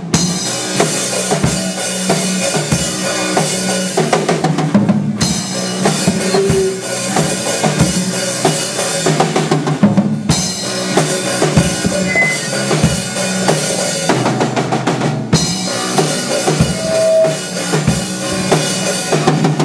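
Instrumental band music driven by a drum kit, with kick and snare hits on a steady beat.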